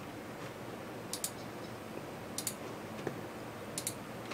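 Faint computer mouse clicks: three quick double clicks about a second and a half apart, over a low steady hiss.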